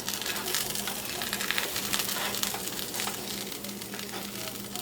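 Filled tortilla sandwiches sizzling and crackling in a frying pan as they toast, a dense patter of small pops, over a faint steady low hum.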